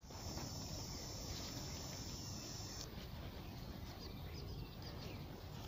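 Outdoor ambience: a low steady rumble, with a steady high-pitched trill that stops abruptly about three seconds in, then a few faint bird chirps.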